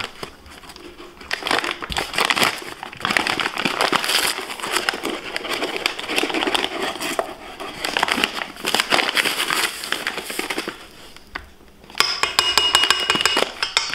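Paper bag of granulated sugar crinkling and rustling in irregular bursts as a metal measuring cup scoops sugar from it and the bag's top is folded over, with a short lull about eleven seconds in.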